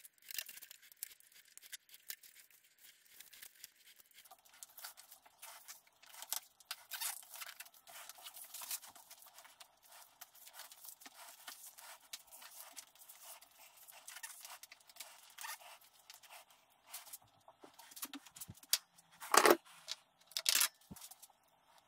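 Handlebar tape being wrapped onto a road bike's drop bar: a steady run of small crackles and rustles as the tape is stretched around the bar. Near the end come two louder sharp sounds as a tool is picked up from the workbench.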